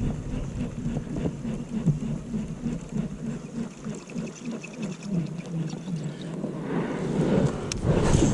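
Fishing reel being cranked in a steady rhythm of about three turns a second, retrieving a buzzbait, with faint ticking from the reel. Near the end comes a louder rustle and a sharp click.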